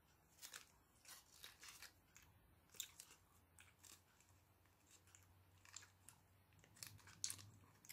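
Faint, irregular soft clicks of someone chewing a bite of a sugar-coated rainbow gummy candy strip.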